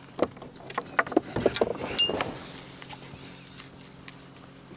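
Sharp clicks and light metallic rattling from a wobbler's treble hook and tackle being handled while a small fish is unhooked, with a short high ting about two seconds in. After that only a faint steady low hum is left.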